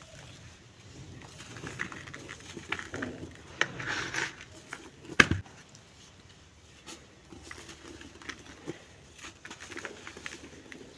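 Dry lumps crumbling and crackling in irregular bursts, with one sharp snap about five seconds in.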